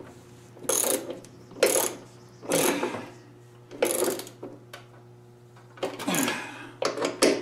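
Ratchet wrench clicking in about six short bursts, about one stroke a second, as the bolts of a flange bearing on a go-kart's rear axle are turned.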